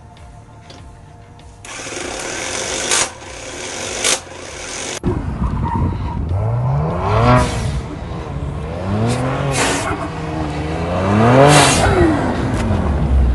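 Kia Stinger's engine revving hard, its pitch climbing and falling back again and again as the car slides on dirt. Before it, a rushing noise with two sharp clicks.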